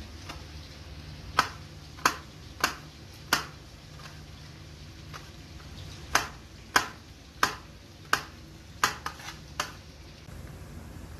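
Kitchen knife slicing green chillies on a plastic tray: sharp clicks as the blade strikes the tray, about one every two-thirds of a second, over a low steady hum.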